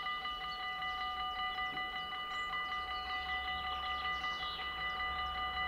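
Dutch railway level-crossing bell ringing rapidly and steadily, about five strokes a second, sounding while the barriers are down: the warning that a train is approaching. Faint bird chirps come in around the middle.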